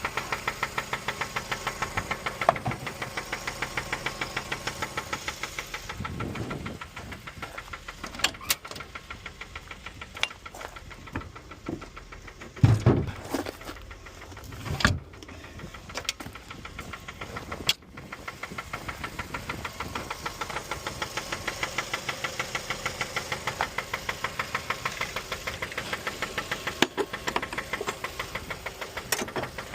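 Mazda 3 engine idling with a steady knock about four times a second: rod knock. A few louder single thumps come partway through.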